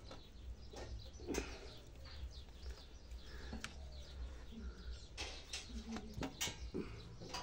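Faint bird chirps with a few small, sharp clicks and rustles from hands working among a juniper bonsai's branches.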